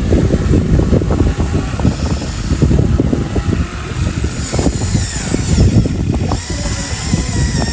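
Remote-controlled model excavator working: its small motor running, with a dense, irregular clatter of knocks and crackles throughout and a faint rising whine about five seconds in.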